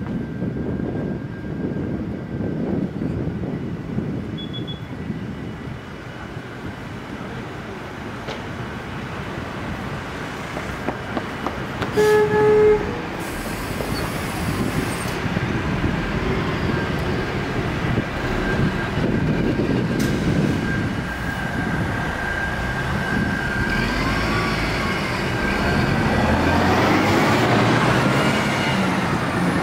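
Daewoo BS106 Royal City city bus's diesel engine running at idle, with street traffic, and a short loud horn blast about twelve seconds in. Near the end the engine revs and a rising whine builds as the bus pulls away.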